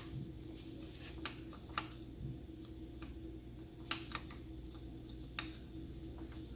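A few light metallic clicks and taps, about five spread out with gaps between them, from clutch parts being handled as the pull rod and pressure plate are fitted onto a motorcycle clutch pack. A faint steady hum runs underneath.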